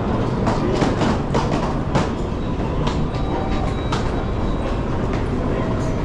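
Shinkansen train running on the track: a steady low rumble with irregular sharp clicks and clacks from the wheels over the rail joints and points.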